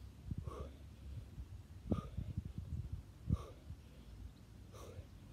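A man breathing hard during fast bodyweight squats, with a short forceful out-breath every second or so.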